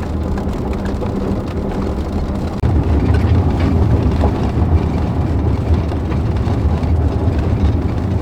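Car driving along a back road, heard from inside the cabin: a steady low rumble of road and engine noise that grows louder about two and a half seconds in.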